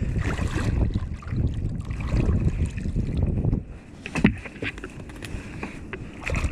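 Rushing, splashing water noise at a fishing kayak for about three and a half seconds, then a few sharp knocks of gear on the kayak.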